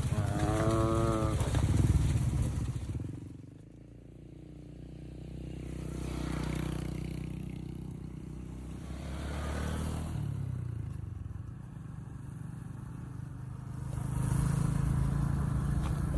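Small motorcycle engine running, getting louder and softer as it moves along the road, with a brief wavering call near the start.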